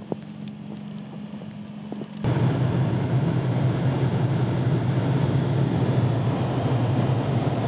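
Vehicle driving: a quiet steady hum with a few light clicks, then about two seconds in an abrupt switch to a loud, steady rush of road and wind noise over a low engine drone.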